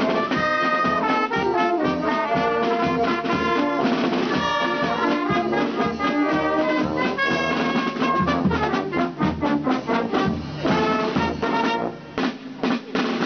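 Small brass band of trumpets, cornets and saxophones with a marching drum playing a tune together, the drum marking a steady beat. In the last second or so the playing breaks into short, separated notes.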